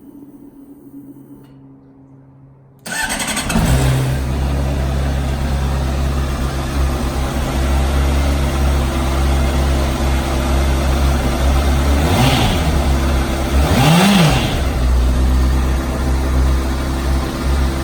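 Honda CBR600RR's inline-four engine, still on its stock exhaust, starts about three seconds in and settles into a steady idle. Near the end it is revved twice in short blips, the second higher.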